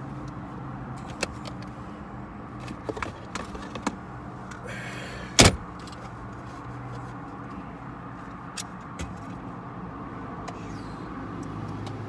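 Car engine idling with a steady low hum. Scattered light clicks and knocks, and one loud sharp thump about five and a half seconds in.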